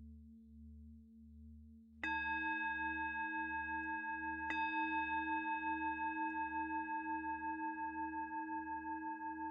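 Singing bowls ringing for meditation: a low bowl tone sounds with a slow wavering pulse, then about two seconds in a higher bowl is struck, and struck again a couple of seconds later, its bright tones ringing on and slowly fading with a steady wobble.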